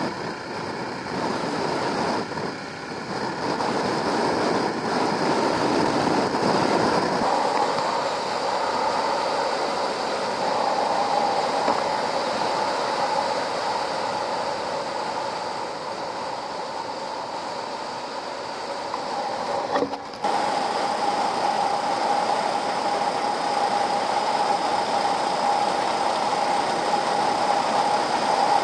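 Suzuki DR650 single-cylinder motorcycle engine running at steady road speed, mixed with wind and road noise. The sound dips briefly about twenty seconds in, and a steady engine tone comes through more strongly afterwards.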